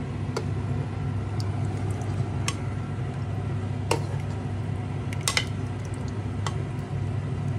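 Metal ladle scooping thin curry gravy from a metal pot into a bowl: liquid sloshing and pouring, with several light clinks of the ladle against the pot. A steady low hum runs underneath.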